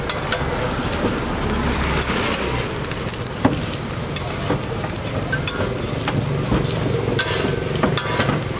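Flatbread frying on a flat griddle with a steady sizzle, while metal spatulas scrape and tap on the griddle surface as the bread is folded and turned, giving several sharp clicks.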